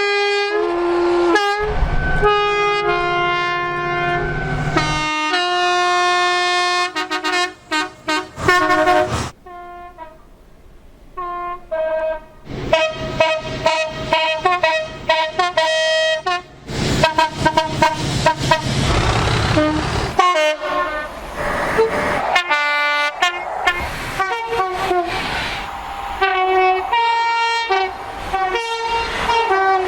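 UK train horns sounding in a rapid series of short and long blasts, switching between high and low notes and changing pitch from one train to the next. About two-thirds of the way through comes the rush of a passing train.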